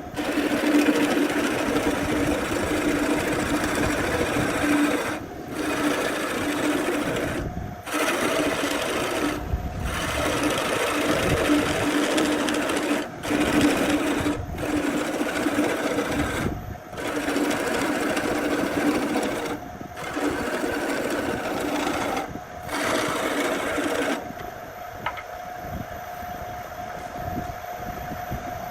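A small electric power-tool motor running steadily with a hum, broken by several short gaps. About 24 seconds in, it gives way to a quieter, higher steady whine.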